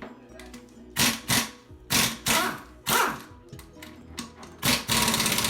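Air-powered wrench on a 12 mm socket spinning bolts out of a Honda B-series transmission case: three short bursts about a second apart, then a longer rattling run near the end. Faint background music underneath.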